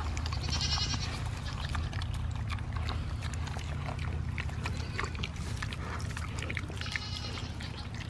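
Two piglets eating banana peels and other food scraps off the ground: wet chewing and smacking, many small clicks over a low steady rumble. Two brief higher-pitched animal calls come in, about half a second in and again about seven seconds in.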